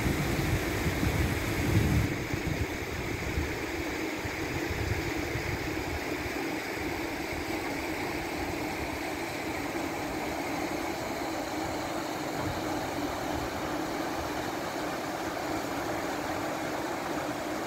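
River water rushing steadily over rocks and shallow rapids. There is an added low rumble in the first couple of seconds.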